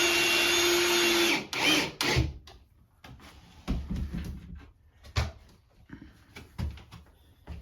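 A power drill runs steadily at full speed and stops about a second and a half in, then gives a short second burst. After that come several scattered knocks and handling clicks on wood.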